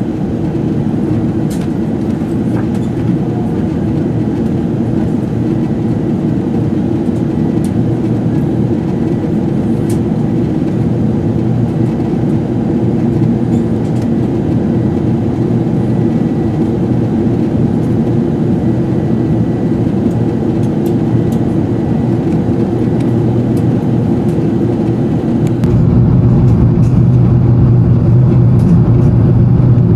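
Steady cabin rumble of an Airbus A380 in flight: airflow and engine noise heard from a passenger seat. Near the end the rumble turns louder and deeper.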